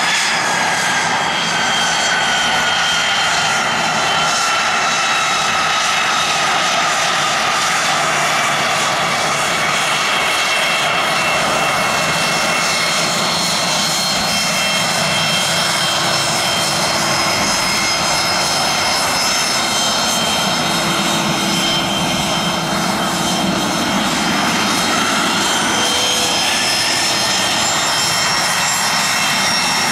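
Twin Williams FJ44 turbofans of a Cessna Citation CJ4 business jet at taxi power: a steady rushing jet noise with a high, multi-tone whine. The whine drifts slowly down in pitch early on and rises again near the end as the jet turns and rolls past.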